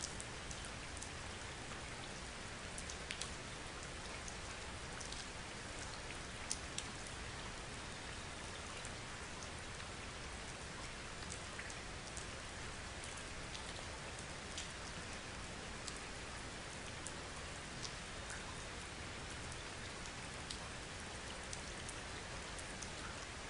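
Steady rain: an even hiss with scattered sharp raindrop ticks.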